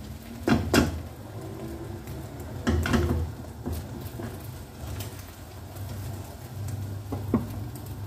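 A spatula scraping and knocking against a non-stick frying pan as egg is turned and broken up: two bursts of strokes in the first few seconds and a lighter knock near the end, over a steady low hum.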